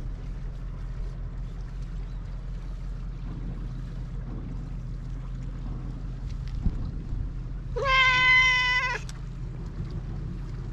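A black-and-white cat gives one drawn-out meow, a little over a second long and held at a steady pitch, about eight seconds in, over a low steady background rumble.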